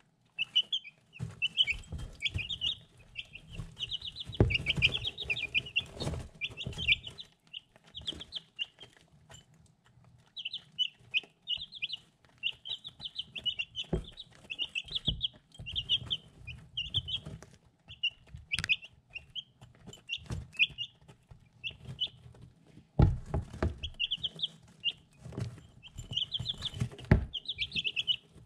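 Three-week-old chicks peeping in a steady stream of short, high chirps while they peck feed from a ceramic dish. Clusters of dull knocks from beaks striking the dish come in the first several seconds and again near the end.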